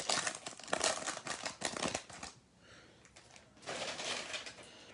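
Foil wrapper of a football trading-card pack crinkling as it is torn open and pulled apart by hand. The crackling fills the first two seconds, stops briefly, and comes again for about a second near the end.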